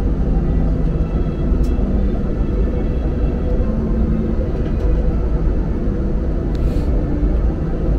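Airliner cabin noise in flight, a steady low rumble of jet engines and rushing air heard from inside the cabin, with a couple of light clicks.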